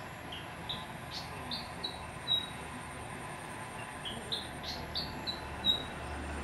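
A small songbird singing: a phrase of about seven short, clear whistled notes that climb in pitch and end on the loudest note, sung twice.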